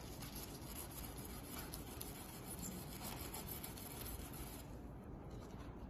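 Steel wool scourer scrubbed over an anti-scratch mirror acrylic sheet, a steady rasping hiss that eases off near the end; a scratch-resistance test of the sheet's surface.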